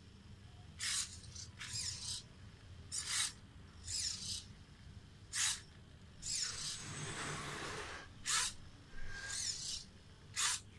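Hobby micro servos in a cardboard robotic hand whirring in short, irregular bursts as they pull the fingers closed and let them open again, with one longer run of movement about two-thirds of the way through.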